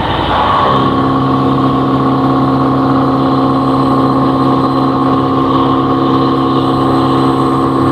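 Vertical machining centre running while cutting a part: a loud, steady machine hum with several held tones, which shift to a new steady pitch a little under a second in.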